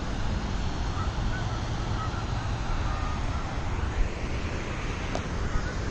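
Wind rumbling on the microphone, with faint short honking calls of distant waterbirds over the first half.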